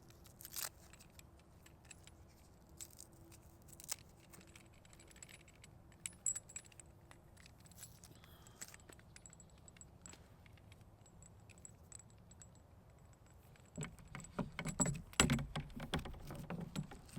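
Handling noise from a magnetic loop antenna being unwound and assembled: scattered light clicks and metallic jingles, becoming louder, busier rattling and knocking over the last few seconds.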